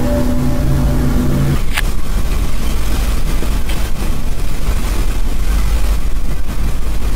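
Faked 'strange sounds' sky noise: a steady, low, droning tone with evenly stacked overtones that cuts off about a second and a half in. It leaves a low steady rumble with a few sharp clicks.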